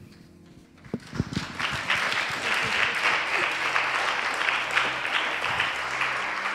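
Audience applauding. A few claps start about a second in, the applause quickly builds to a steady level, and it dies away near the end.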